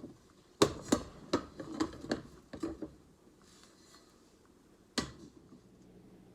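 Handling noise: a quick run of sharp clicks and knocks over the first few seconds, then one more sharp knock about five seconds in.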